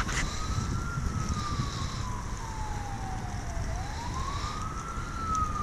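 An emergency-vehicle siren wailing: a single tone that rises over about a second and then falls slowly over about three seconds, cycling twice, over low rumbling background noise.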